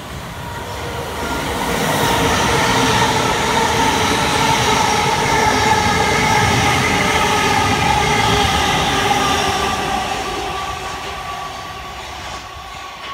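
Thameslink Class 700 electric multiple unit running along the platform, its traction motors whining in several steady tones that drift slightly lower in pitch, over the rumble of wheels on rail. The sound swells over the first few seconds and fades near the end.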